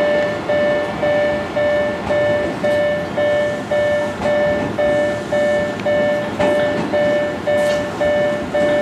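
Railway level-crossing warning bell ringing steadily, about two even strikes a second, as a train approaches.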